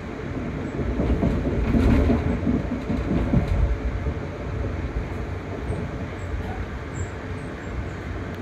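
Amtrak Downeaster passenger train running along the track, heard from inside a coach: a steady low rumble of wheels on rail that swells about a second in and eases off after about four seconds, with a few light clicks.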